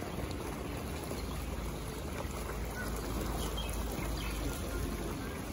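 Shallow pool water trickling and lapping in a steady wash, over a low steady rumble, with a few faint chirps.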